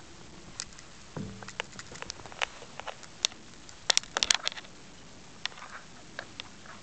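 Scattered light taps and crackles from a kitten scrambling on bedding and the camera being handled close to it, with a quick burst of sharp clicks about four seconds in.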